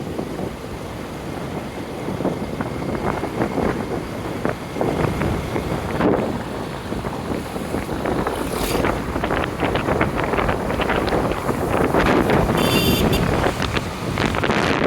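Wind buffeting the microphone on a moving motorcycle, an uneven gusty rush with road and engine noise underneath.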